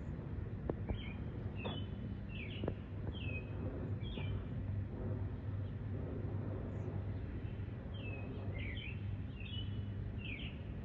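Low, steady rumble of a distant Boeing 737-700 jet on approach, with a bird singing two runs of short chirps over it, one in the first few seconds and one near the end.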